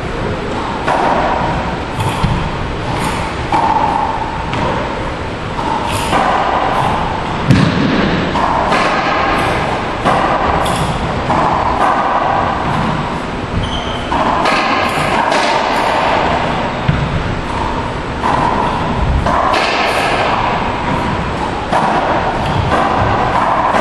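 A racquetball being struck with racquets and rebounding off the walls and floor of an enclosed court: a run of irregular sharp thuds and pops that echo, the loudest about seven and a half seconds in.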